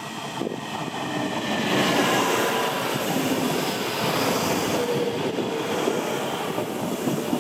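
A pair of coupled DB class 623 diesel railcars running along the track. The diesel engines and the wheels on the rails grow louder over the first two seconds, then hold steady, with a faint whine over the running noise.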